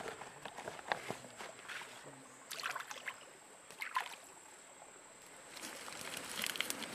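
Rustling and crinkling of a large wet leaf being handled beside shallow running water, with two louder swishing splashes about two and a half and four seconds in.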